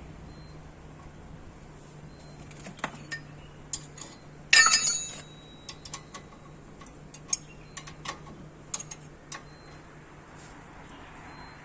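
Metal tools and brake parts being handled: scattered sharp metallic clicks and clinks, with one loud ringing clatter of metal about four and a half seconds in.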